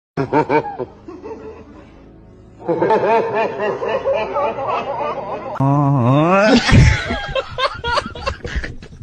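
Snickering laughter sound effects over music. A pitched glide rises and falls about six seconds in, and a thump and a quick run of clicks follow it.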